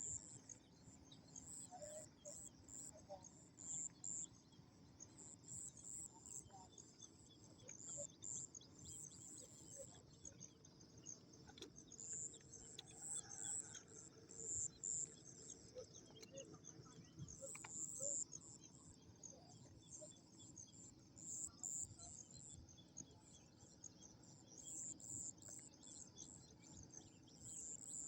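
Insects chirping in rapid, high-pitched pulses that keep repeating, with scattered bird chirps over a faint outdoor background.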